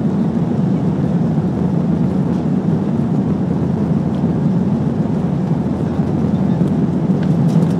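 Airbus A320 cabin noise during the takeoff roll: the twin jet engines at takeoff power and the run down the runway make a loud, steady, deep rumble that grows a little louder near the end.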